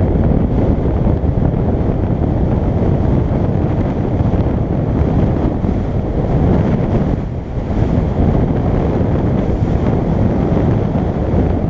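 Loud wind buffeting on the microphone from fast travel down a road: a steady low rush, with a brief dip about seven and a half seconds in.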